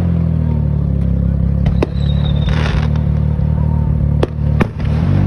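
Car engine running steadily at idle, a loud low hum, with a few sharp clicks about two and four and a half seconds in.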